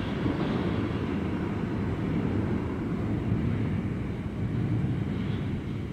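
R142 subway train pulling away into the tunnel: a steady low rumble of wheels on track that eases off a little near the end.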